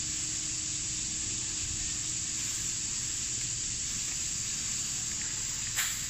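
Steady, even hiss of open-air ambience with an uneven low rumble underneath, and one short click near the end.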